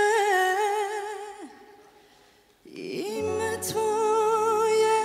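Female singer's voice holding a long note with vibrato into a microphone. The note fades out about a second and a half in, and after a short pause a new held note begins, with a soft, steady low accompaniment entering under it.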